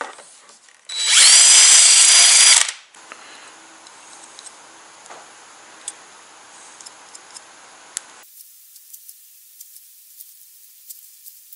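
Cordless DeWalt drill/driver run once for about a second and a half at the battery's terminal nuts, its motor whine rising as it spins up and then holding steady.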